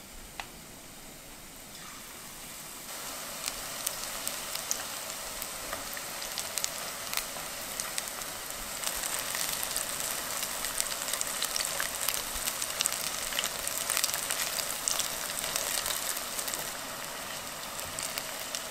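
Batter-coated balloon flower roots deep-frying in hot oil: a steady sizzle full of small crackling pops. It grows louder about two to three seconds in as more battered pieces go into the oil, and is busiest in the middle.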